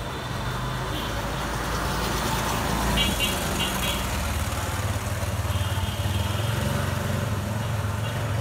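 Street traffic noise: a motor vehicle engine running close by with a low steady drone that grows louder about halfway through. A run of short high beeps sounds about three seconds in, over a background of voices.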